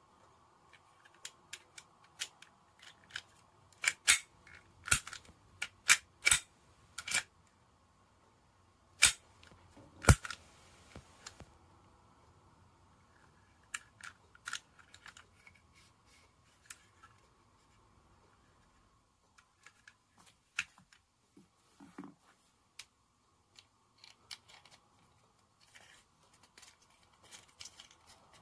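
Sharp mechanical clicks and snaps from a Sig Sauer P365 CO2 air pistol being handled and worked, its slide and trigger clicking. The clicks come thick and loud in the first ten seconds, then sparser and lighter, with a few more near the end as the magazine is handled.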